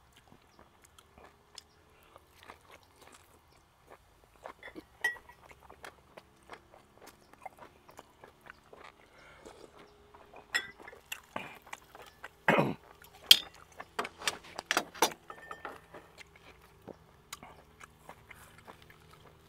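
Eating at a table: chewing mixed with scattered small clicks and taps, and a metal spoon clinking in a glass bowl. Several louder sharp knocks of utensils come together about halfway through, and near the end a knife and tongs work steak on a wooden cutting board.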